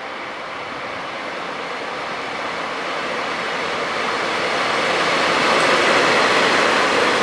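DD51 diesel locomotive running slowly past, hauling a rake of unpowered Seibu electric cars; the engine and wheel noise grow steadily louder as it draws close, loudest about six seconds in.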